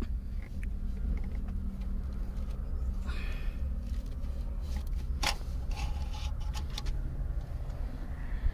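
Maruti Suzuki Eeco's engine oil dipstick being pulled out of its tube: a scratchy rustle, then a sharp click a little after five seconds and a few lighter clicks. A steady low rumble of road traffic runs underneath.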